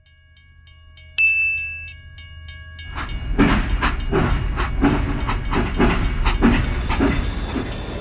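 Toy steam locomotive's train sound: a low hum, a short whistle tone about a second in, then steady rhythmic chuffing, roughly three puffs a second, over a low rumble.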